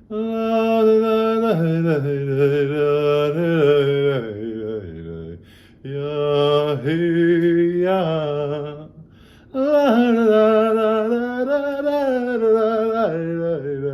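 A man singing long wordless, chant-like phrases, three of them, each stepping down in pitch with a slight waver and separated by short pauses for breath.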